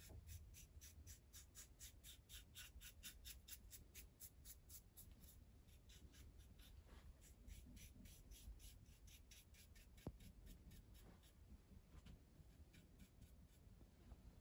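Faint, quick strokes of a small brush spreading wood stain on a Carcano M91 rifle's wooden stock, about five strokes a second, thinning out near the end.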